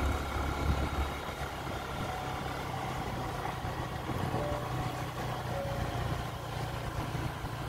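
Motorbike engine running steadily while riding, with road and wind noise.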